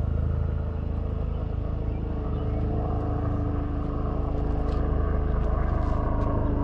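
An engine idling steadily nearby: a constant low rumble with an even hum on top that doesn't change in pitch.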